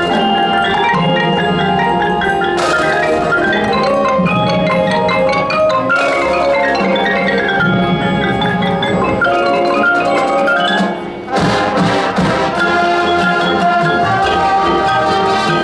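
Marching band music led by mallet percussion (marimba, xylophone and glockenspiel) playing quick runs of notes. The sound dips briefly about eleven seconds in, then fuller held chords come in.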